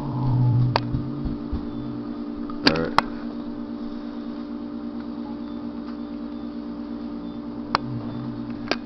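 Microwave oven running with a steady hum, and a few sharp clicks over it.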